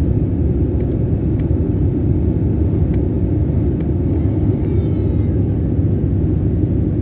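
Airliner cabin noise in flight: a steady low rumble of the jet engines and airflow, with a constant hum under it.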